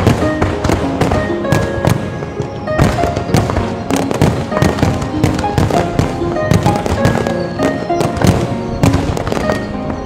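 Fireworks bursting in a dense, continuous barrage of sharp bangs, several a second, with music playing alongside.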